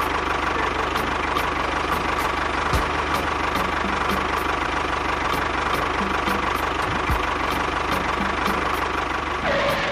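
Diesel tractor engine idling steadily with a regular knocking beat. A different sound breaks in just before the end.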